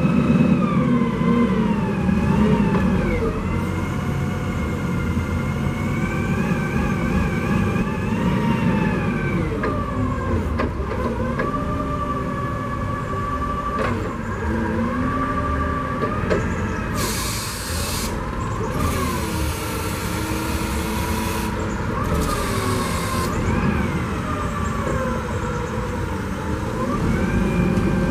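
LPG engine of a 2014 Cat GP40N forklift running, its revs rising and falling as the hydraulic mast is worked, with a whine that glides up and down along with the revs. A few short bursts of hiss come about two-thirds of the way through, and the low engine rumble grows louder near the end as the truck moves off.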